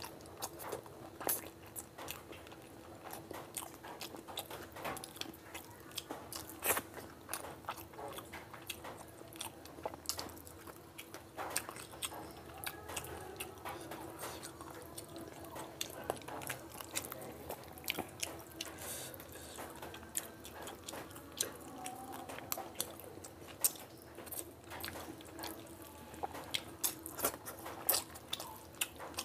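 Close-miked eating sounds of a man chewing mouthfuls of fish curry and rice eaten by hand: wet chewing and lip-smacking with many quick, irregular sharp clicks. A faint steady hum runs underneath.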